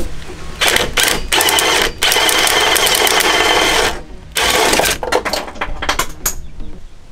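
Cordless power tool driving a long socket extension onto a bolt, running with a steady whirring rattle in bursts: one long run of about three seconds, then two shorter ones.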